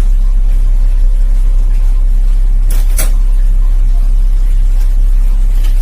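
A loud, steady low hum, with two sharp clicks close together about three seconds in as vitamin E capsules are cut open.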